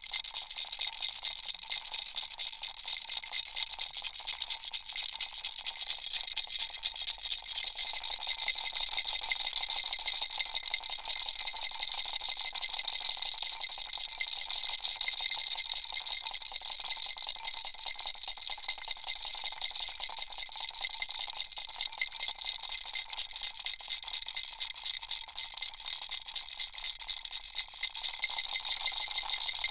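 Baby rattle shaken steadily without a break: a fast, dense patter of small beads rattling, with a faint ringing tone underneath.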